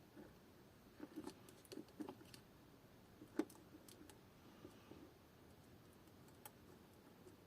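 A few faint, light clicks and taps from small tools being handled on the remote's circuit board during desoldering, with one sharper click about three and a half seconds in, over near silence.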